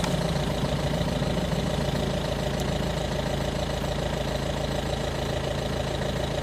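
Engine idling steadily, an even hum that holds at one pitch throughout.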